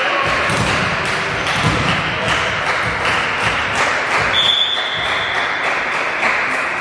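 Volleyball spectators beating out a steady rhythm in a sports hall, a stroke every third of a second or so. A referee's whistle sounds once, a little past the middle, for about half a second, the signal to serve.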